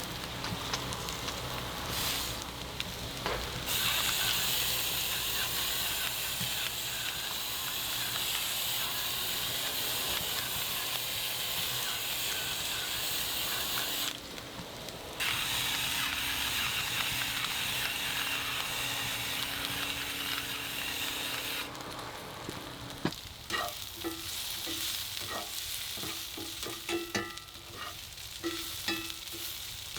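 Green peppers and onion sizzling in oil in a 10-inch pan, the sizzle stopping and restarting abruptly a few times. Over the last several seconds the sizzle is quieter, with clicks and scrapes of a utensil stirring the pan.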